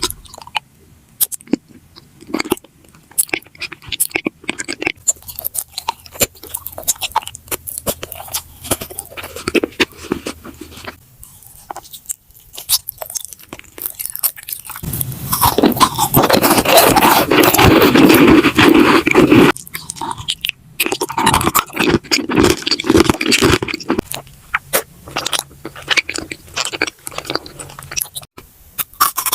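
A person biting and chewing crunchy food close to the microphone: a long run of sharp crunches, densest and loudest for about five seconds in the middle, with another thick stretch a little later.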